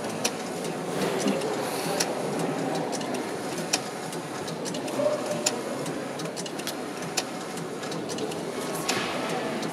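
A train's roll-type destination sign winding its blind from one destination to the next, a mechanical running sound with scattered sharp clicks, over a steady background murmur.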